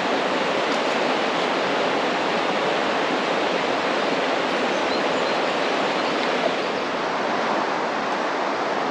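Fast river water rushing steadily over small waterfalls and through heavy current, as an even, continuous noise.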